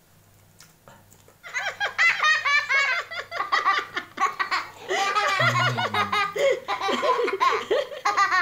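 High-pitched laughter in quick repeated peals, starting about a second and a half in and going on to the end.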